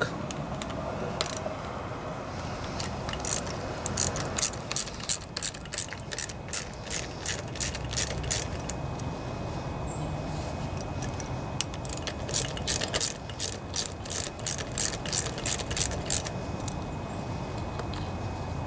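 Ratchet socket wrench clicking as it turns a bolt to take off a small bracket, in two runs of about three clicks a second with a pause between.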